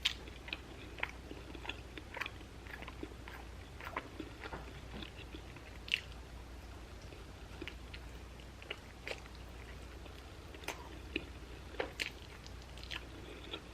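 Close-miked chewing and biting while eating a chicken wing, with soft wet mouth clicks and smacks scattered through.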